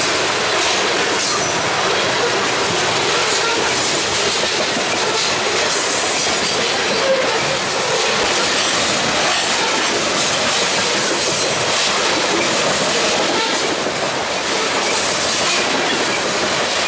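Loaded covered hopper cars of a freight train rolling past at trackside, with steady wheel-on-rail noise.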